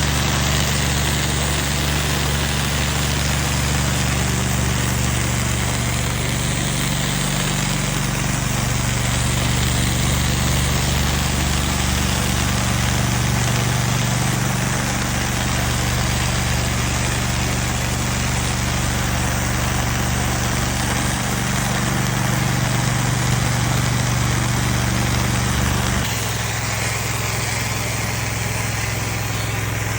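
Gas-engine pressure washer running steadily, a hiss of spray over the engine's drone. About four seconds before the end the engine note shifts and the sound drops a little.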